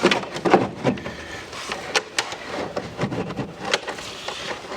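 Plastic air filter box knocking and scraping as it is handled and pushed into place over the car's air inlet: an irregular run of short clicks and knocks.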